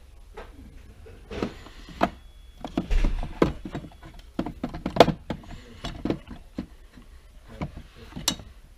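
Irregular clicks and knocks of steel outside micrometers being handled and set into the slots of a fitted wooden case, metal tapping on wood and on the other micrometers.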